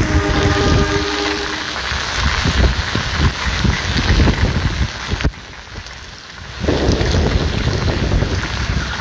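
A CC 203 diesel-electric locomotive's horn sounds one blast of about a second and a half. Heavy rain and wind buffet the microphone throughout, with a brief quieter dip past the middle.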